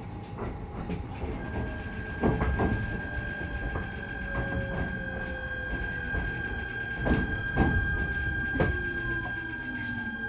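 E129 series electric train running, heard inside the car over a motored bogie: the Toyo Denki IGBT inverter gives a long steady high whine with fainter steady tones above it. A few tones fall slowly in pitch as the train slows. Over the rumble come irregular knocks from the rail joints.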